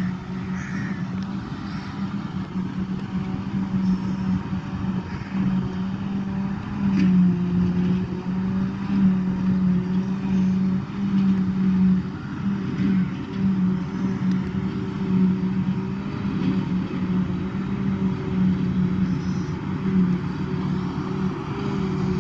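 Claas Jaguar 880 self-propelled forage harvester and John Deere 6175R tractor running side by side while the harvester chops grass silage into the trailer. The sound is a steady heavy engine drone with a low hum that wavers slightly in pitch.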